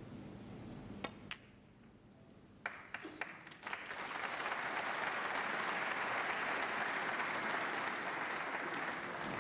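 Two sharp clicks of snooker balls about a second in. A few claps follow at about three seconds, then the crowd breaks into steady applause for a half-century break of 50.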